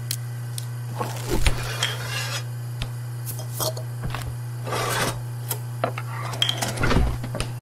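Kitchen sound effects: pots, pans and utensils clinking, scraping and clattering over a steady low hum, with a few louder knocks.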